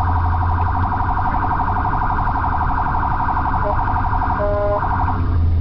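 Police car siren sounding a fast, pulsing warble, heard from inside the car over a steady low engine and road rumble. Near the end it briefly switches to a lower, steadier tone, then cuts off.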